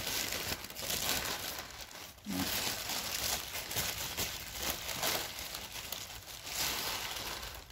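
Thin black plastic bag crinkling and rustling as it is pulled and draped over containers of sprouting mung beans, in uneven bursts with a short pause about two seconds in.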